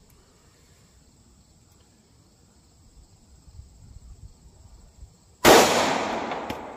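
Faint background hush, then about five and a half seconds in, a single .45 ACP pistol shot firing a Federal Syntech Defense round, its echo dying away over the following second.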